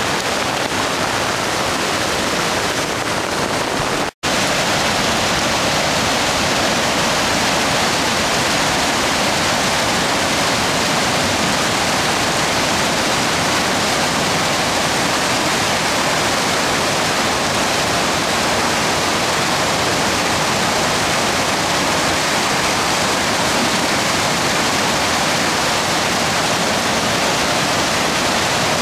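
Swollen creek in flood, its rushing water a steady, continuous noise. The sound drops out for an instant about four seconds in.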